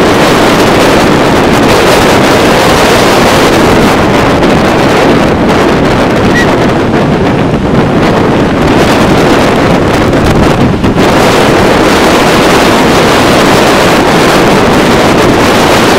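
Loud, steady rush of wind buffeting the microphone over breaking surf.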